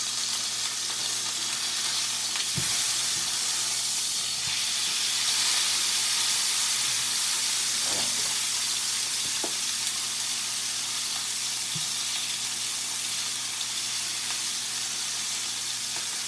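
New York strip steak frying in a nonstick pan: a steady sizzle with a few faint ticks and pops.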